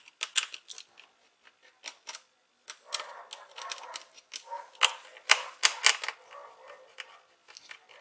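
Small screwdriver clicking and scraping against the screws of a laptop's hard drive bay as the screws are loosened and handled: irregular light clicks and taps, busiest and loudest about three to six seconds in.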